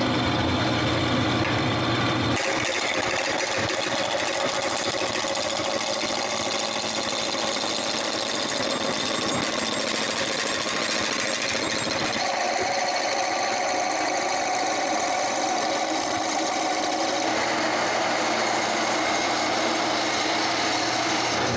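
Wood lathe spinning a square cedar blank while a gouge roughs it round: a steady, rapid chatter of the corners hitting the tool, changing in tone a few times as the cut moves along.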